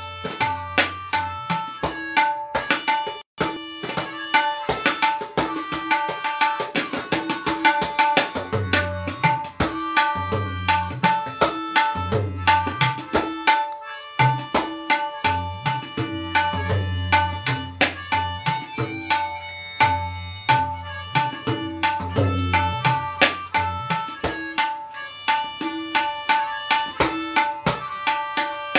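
Tabla solo in teentaal: a dense stream of rapid strokes on the right-hand drum, which rings at its tuned pitch, with deep, resonant left-hand bayan strokes in recurring phrases. The bass drops out briefly about 14 seconds in.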